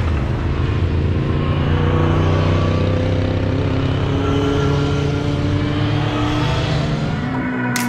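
Motorcycle engines on a track, several bikes riding through a cone-marked turn and accelerating out of it, their pitch rising as they speed up. A sharp click near the end.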